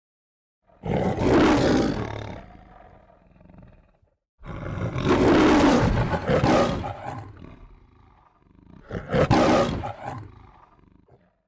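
The MGM studio logo's lion roar: a lion roaring three times, each roar starting loud and fading away over a few seconds.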